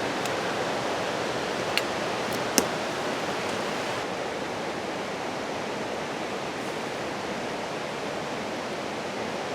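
Steady rushing of creek water, even and unbroken, with three short sharp clicks about two seconds in.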